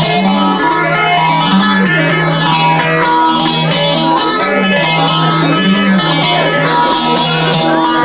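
Bağlama (saz) playing an instrumental passage between sung verses of a semah: a plucked melody over a steady low note.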